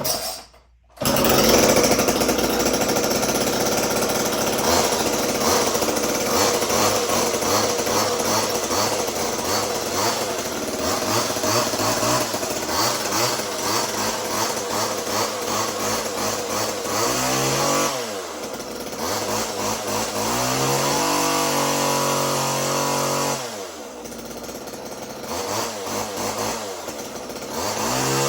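Homelite XL two-stroke chainsaw with a 12-inch bar catching about a second in and running, its engine revved up and down several times and settling lower after about two-thirds of the way through. Its idle is set a little too high.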